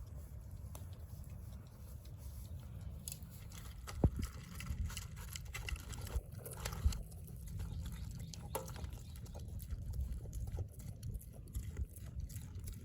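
Light rain falling, with scattered irregular drips and taps over a low rumble.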